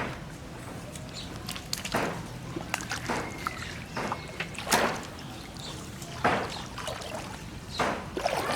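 Floodwater splashing and sloshing, with short splashes every second or two.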